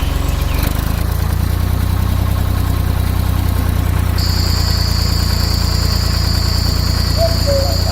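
Tractor engine running steadily with a low, fast-pulsing rumble. About four seconds in, a steady high whine joins it.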